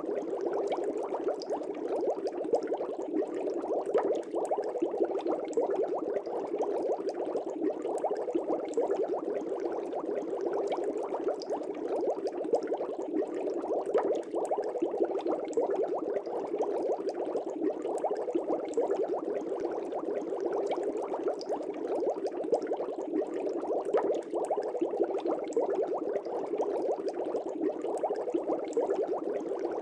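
Aquarium air bubbles rising and breaking at the water surface of a fish tank: a steady, dense bubbling with many small pops.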